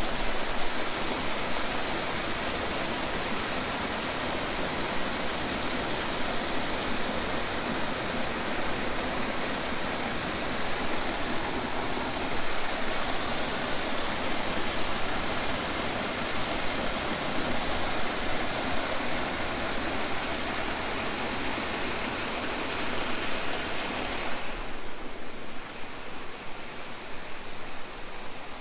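Waterfall: a steady rushing roar of falling water that grows quieter and duller about 24 seconds in.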